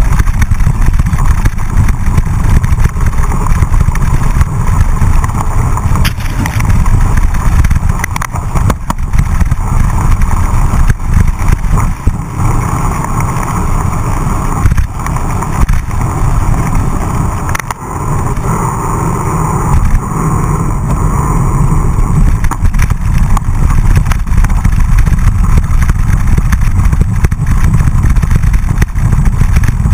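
Steady, loud wind rumble on the microphone of a mountain-bike-mounted action camera at speed, with the tyres rolling over wet pavement and then dirt, and a few brief knocks as the bike jolts.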